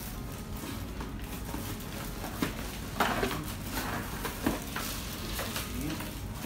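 Plastic packaging crinkling and rustling, with cardboard scraping and a few light knocks, as a boxed hand mixer is lifted out and unwrapped. The loudest crackle comes about three seconds in.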